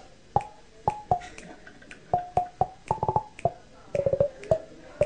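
Drumsticks tapping on a man's head while he holds a microphone to his open mouth, giving hollow knocks with a ringing note that changes pitch from knock to knock and plays a tune. Single knocks and pairs give way to quick rolls of several strikes near the end.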